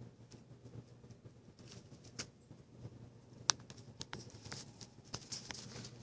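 Faint scattered clicks and scratching from pet parrots moving about, with one sharp click about three and a half seconds in and a soft high rustle near the end.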